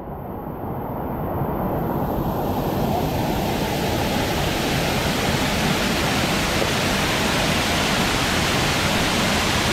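Waterfall water rushing steadily over a rocky cascade, fading up over the first two or three seconds and then holding even.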